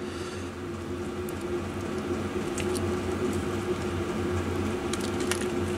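Steady electric fan or motor hum, with a few faint clicks of small parts being handled.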